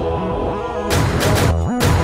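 Cinematic intro music under title cards, with pulsing bass notes and held tones, and a run of sharp hits about a second in and again near the end.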